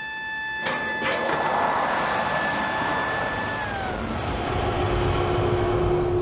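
Electromagnetic catapult (EMALS) firing a dead-load test slug off a carrier deck. A steady high whine runs under a sudden rush of noise that starts just under a second in. The whine then drops in pitch about three and a half seconds in, and a low rumble builds near the end.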